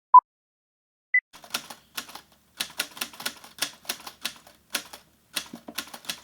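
Typewriter clacking: a run of irregular sharp key strikes, a few a second, with no words over it. It is preceded by a short electronic beep at the very start and a higher ding about a second in.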